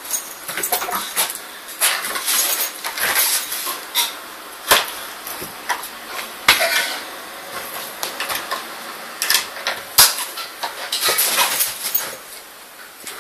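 A Staffordshire bull terrier thrashing and attacking a dried pig's ear chew: irregular bursts of scuffling and rustling, broken by sharp knocks, the loudest about ten seconds in.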